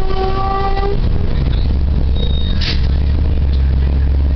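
Cabin sound of a 1999 Orion VI CNG city bus: its Cummins L10G natural-gas engine running with a steady low drone. A steady tone with overtones sounds for about the first second.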